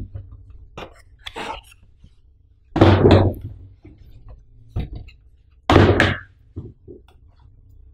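Hands pulling molded pulp cardboard corner protectors off a shrink-wrapped laptop box and handling the box: a series of cardboard scrapes and rustles, the loudest about three seconds in and again about six seconds in.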